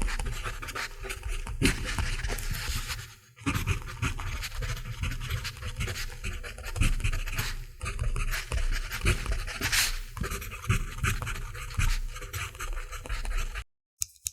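Mechanical pencil writing on paper: a continuous run of short scratchy strokes, with a brief pause about three seconds in. It stops near the end, leaving a few faint taps.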